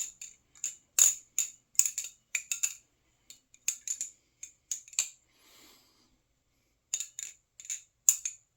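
Titanium balisong trainer being flipped: its handles and blade clack together in irregular runs of sharp metallic clicks with a bright, high ring, pausing for about a second and a half past the middle.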